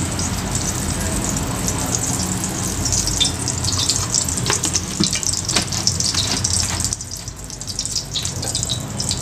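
Oil and a spoonful of ghee heating in an aluminium pressure cooker, sizzling with a steady hiss and scattered crackles as the ghee melts in. The sizzle eases off about seven seconds in.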